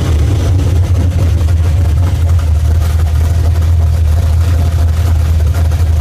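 Engine with an aggressive racing camshaft, CNC heads and a full exhaust idling with a choppy, lopey beat, each cylinder's firing almost countable.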